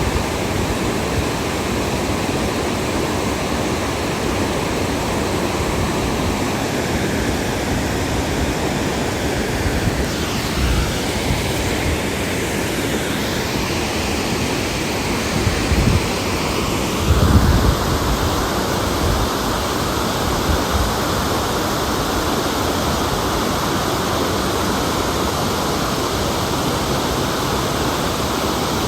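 Water falling over a hydroelectric dam: a loud, steady rushing of falling water, with a few brief low thumps around the middle.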